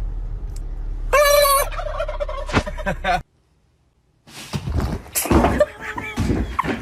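A loud animal call with a wavering pitch about a second in, lasting about half a second, over a steady low hum. The sound cuts out briefly after about three seconds, then a new stretch of mixed knocks and noises begins.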